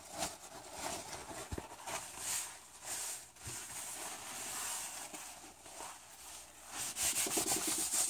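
Hands sliding over and smoothing a sheet of paper: irregular swishing and rustling strokes, busier near the end.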